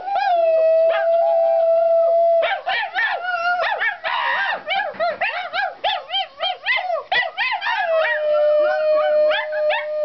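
A dog and a woman howling together. Long held howls open and close the stretch, with quick rising-and-falling wails, about three a second, in between.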